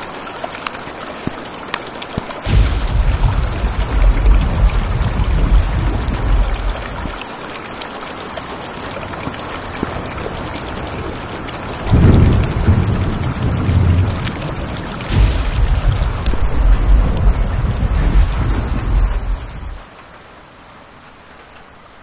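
Heavy rain falling steadily, with several rolls of deep thunder rumbling underneath that set in abruptly and fade. The rain turns much quieter for the last couple of seconds.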